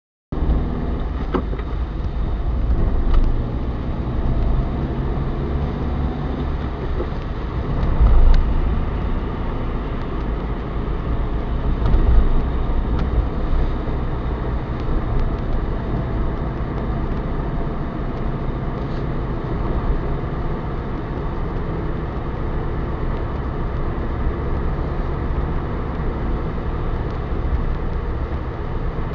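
Steady low rumble of a car's engine and tyres on the road, heard from inside the moving car's cabin, with a few louder swells along the way.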